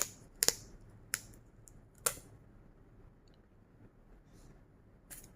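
Fingernails clicking and tapping on a figure's cardboard-and-plastic packaging while a sticker seal is carefully picked at: four sharp clicks in the first two seconds or so, then faint handling.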